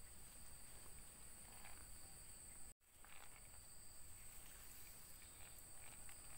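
Faint, steady, high-pitched drone of insects, which drops out for an instant about three seconds in.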